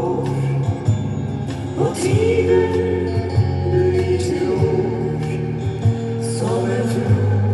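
Music: a recorded pop song with a steady bass line and long held melody notes that slide up into pitch.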